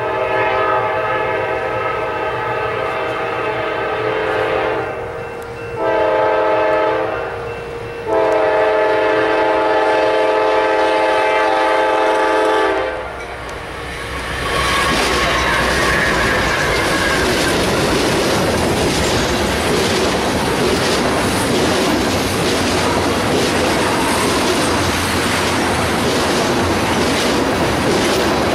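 Freight locomotive air horn sounding several notes at once, in a long blast, a short one and another long one. It is followed by a train of tank cars rolling past close by, wheels clattering steadily over the rails.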